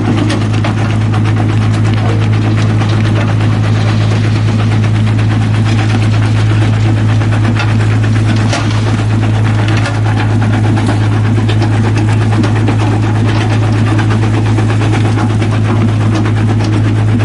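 Small mobile rock crusher running steadily with a constant low drone, over which come frequent scattered cracks and knocks of rocks being broken in the jaws.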